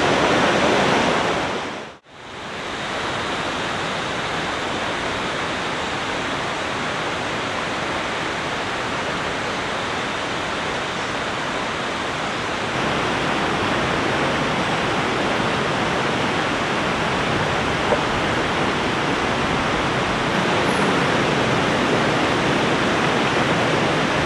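A river flowing steadily, an even rush of water. It briefly drops out and comes back about two seconds in.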